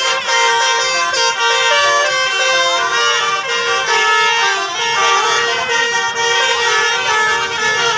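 Bus telolet horns, the multi-tone musical horns of Indonesian buses, sounding loudly together. Several overlapping horn tunes step from note to note, with a few sliding notes among them.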